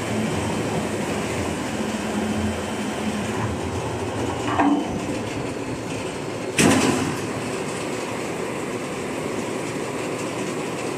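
Automatic veneer peeling line running: steady machine noise, with a short knock about four and a half seconds in and a louder sharp bang about six and a half seconds in.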